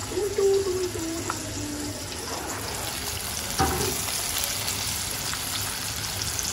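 Flour-coated chicken strips deep-frying in hot oil in a black iron wok: a steady sizzle that grows brighter in the second half. A single sharp knock comes a little past halfway.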